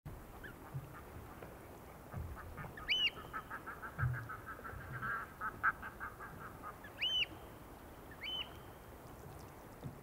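Underwater sounds of a sea loch picked up by a hydrophone. A rapid run of pulses, about ten a second, lasts for about four seconds. Three short squeaks rise then fall in pitch, and there are a few dull low thumps over a steady hiss.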